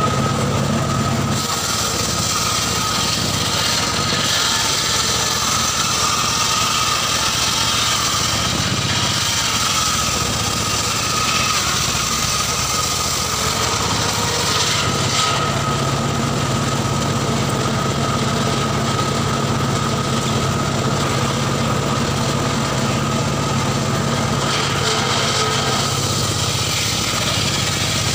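Engine-driven homemade circular saw bench running steadily, its blade cutting a mahogany log as the log is pushed through, with a steady motor hum under a high saw whine.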